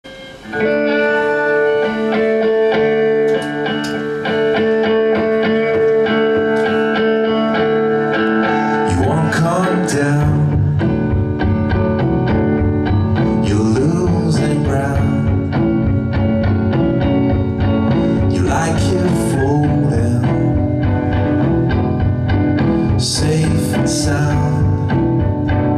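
Live band music: electric guitar and keyboard hold sustained chords for about nine seconds, then the drums come in and the band plays on together with cymbal crashes.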